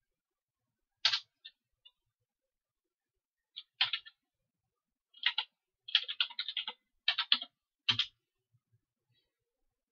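Computer keyboard keystrokes, typing a terminal command. Single key clicks come a few seconds apart, then a quick run of keystrokes, with the last press about 8 seconds in.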